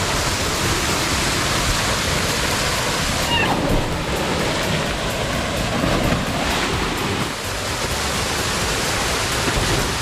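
Waterfall pouring: a steady, loud rush of falling water.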